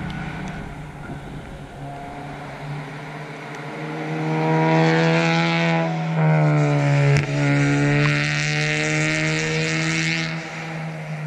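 A small hatchback race car drives past on a wet track. Its engine note swells, is loudest in the middle with tyre hiss from the wet surface, shifts in pitch as it passes, and fades near the end over a steady distant engine hum.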